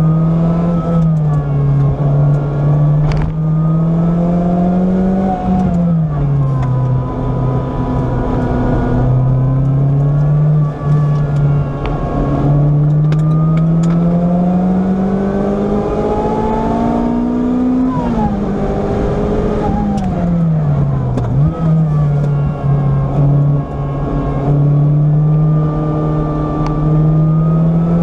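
Onboard sound of a car's engine lapping a race track at full loudness. The revs climb steadily under acceleration, then drop with braking and downshifts twice, about five seconds in and again from about eighteen seconds in, with a quick blip near the end of the second drop.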